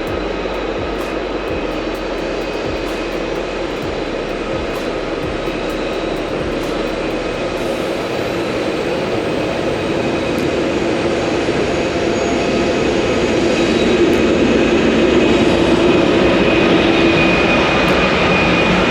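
Steady engine and road noise of a moving vehicle, growing slowly louder.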